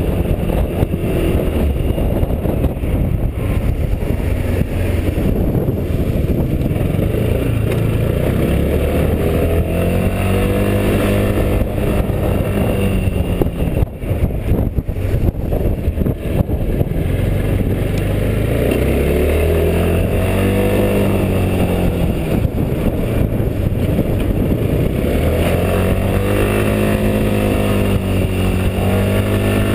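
Quadro 350D tilting three-wheel scooter's single-cylinder engine running under way uphill, its note rising and falling several times as the throttle is opened and eased, with wind noise on the microphone.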